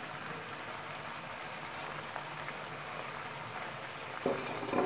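Chicken and vegetable stir-fry with its sauce sizzling and bubbling in a nonstick wok over a gas flame, a steady crackling hiss. A brief louder sound comes near the end.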